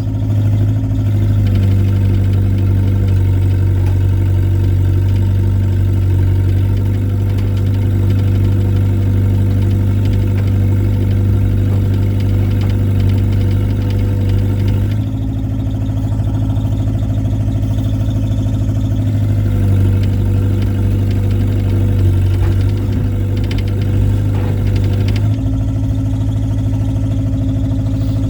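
Excavator's diesel engine running steadily while pulling, its note shifting about halfway through and again near the end.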